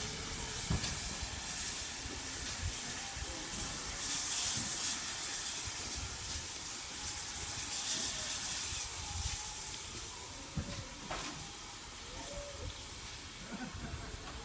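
Steam locomotive hissing: a steady rush of escaping steam that eases a little about two thirds of the way through, with one sharp knock shortly after.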